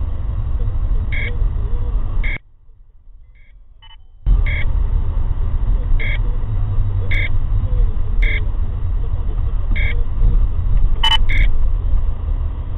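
A car-mounted radar detector gives short electronic alert beeps, roughly one every second or so, over the loud low rumble of a car cabin in slow traffic. The sound nearly cuts out for about two seconds a couple of seconds in.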